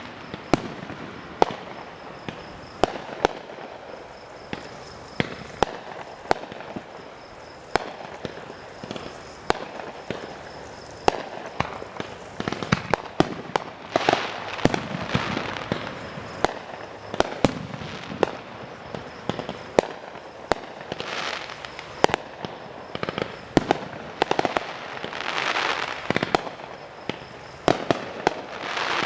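Fireworks show: sharp bangs and booms of exploding aerial shells at irregular intervals. They come thicker about halfway through and again near the end.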